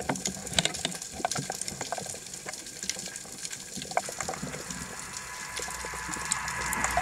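Bubbling, gurgling water with many scattered sharp clicks. From about four seconds in, a rushing hiss builds and keeps growing louder.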